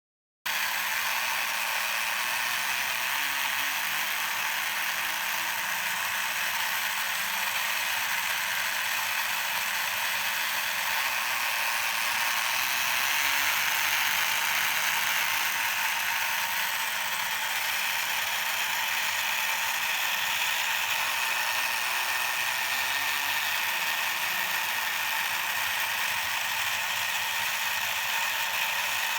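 Battery-operated 1960s Japanese tinplate monkey painter toy running, its small electric motor and gear train working steadily. The sound starts about half a second in.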